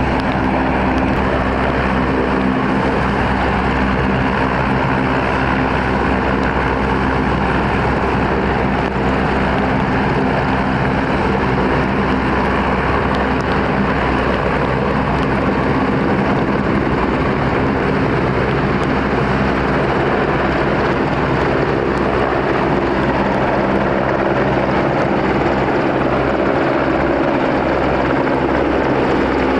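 Royal Navy Merlin HM1 helicopters running at close range: one turning its rotors on the ground while another lifts off and hovers. The engine and rotor noise is steady and loud, with several held tones under it.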